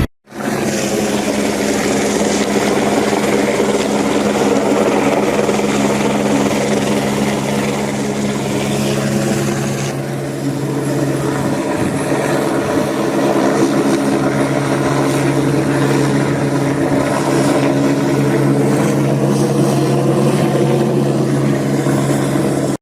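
Helicopter rotor and turbine engine running steadily: a loud, even drone with a low hum under a rushing noise.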